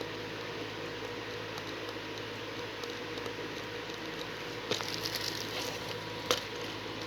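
Handling of a Blu-ray case and its packaging: a brief crackly rustle about five seconds in, then a single sharp click a second later, over a steady hum.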